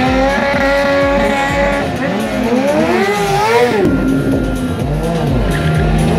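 Motorcycle engine held at high revs during a burnout, the rear tyre spinning on the tarmac; about halfway through it is revved up and down a few times before it settles again.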